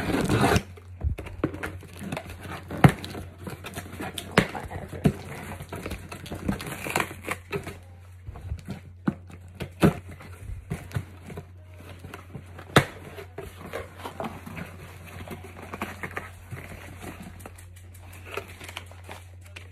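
A cardboard shipping box being unboxed: tape slit along the top with a hand tool, flaps pulled open, and packing material and inner packaging rustling and crinkling, with many scattered knocks and scrapes.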